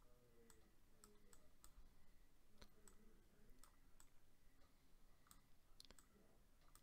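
Faint, irregular clicking of a computer mouse button, a dozen or so clicks, as strokes are drawn with the mouse.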